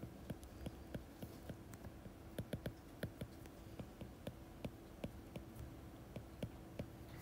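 Stylus tapping and clicking against a tablet screen during handwriting: faint, irregular clicks a few times a second over a faint steady hum.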